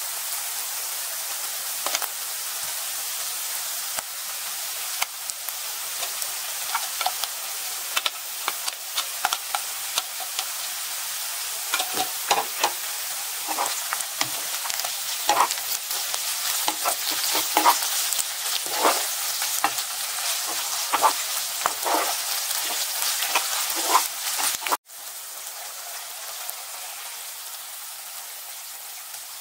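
Shredded cabbage and beef sizzling in hot oil in a nonstick pan while being stirred and tossed with silicone-tipped tongs and a spatula, a steady sizzle with frequent short scraping and tapping strokes. The strokes grow stronger about halfway through, and near the end the sizzle suddenly drops quieter.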